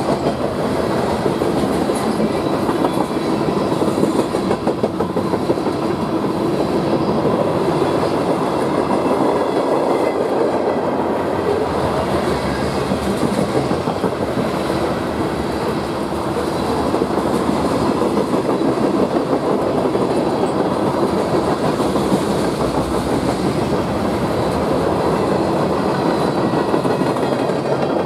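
Eastbound BNSF manifest freight train's cars rolling past, a steady loud rumble and clatter of steel wheels on the rails.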